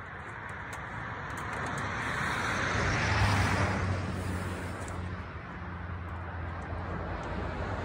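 A vehicle passing by: a rushing noise that builds to a peak about three seconds in and then fades, with a low engine hum underneath.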